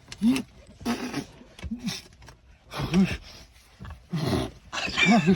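A man sneezing over and over in loud, strained vocal bursts, about six in a row roughly a second apart, gagging as if about to throw up.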